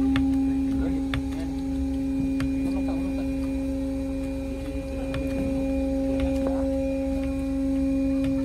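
Steady machinery hum on a ship's deck: one constant low tone with overtones, with a few faint clicks.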